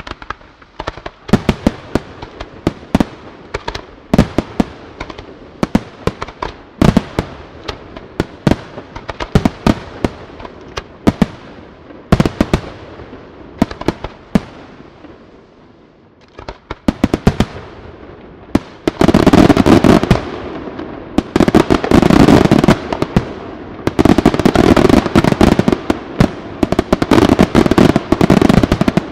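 Aerial fireworks display: separate sharp bangs of shells launching and bursting, a short lull, then a loud, dense barrage of rapid bangs and crackling through the second half.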